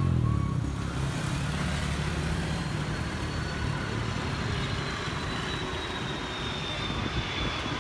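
Twin-engine jet airliner on landing approach, its engines heard as a high whine that sinks slightly in pitch while a rushing roar builds towards the end, over a low rumble of road traffic.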